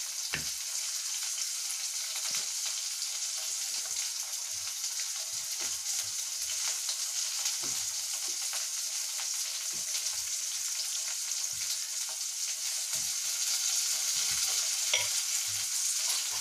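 Chopped onion, tomato and eggplant sizzling steadily as they fry in oil in a pan, with scattered soft knocks.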